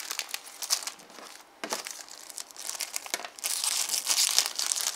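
Thin clear plastic bag crinkling as sheets of stickers are pulled out of it, with a louder stretch of crinkling about three and a half seconds in.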